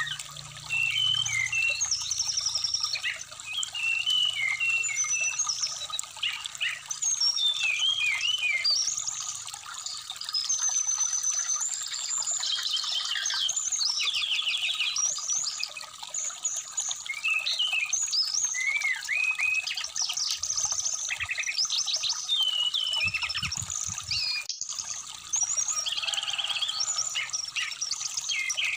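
Brown-chested jungle flycatcher (sikatan rimba dada coklat) singing a fast, varied song of chirps, whistles and rapid trills over the steady trickle of a shallow stream.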